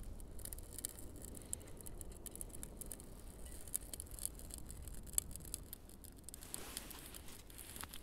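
Faint crackling of birch bark and thin dry twigs catching fire in a stainless-steel twig-burning camp stove: many small sharp pops and ticks as the kindling takes.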